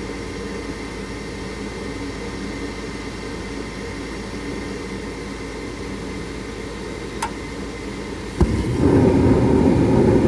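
ICP gas furnace running with a steady mechanical hum and a faint click about seven seconds in. Near the end a louder, rough rumble starts suddenly and lasts about two seconds.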